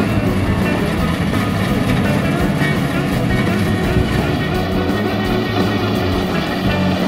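Background music over the steady running of a Kubota crawler combine harvester's engine as it cuts rice.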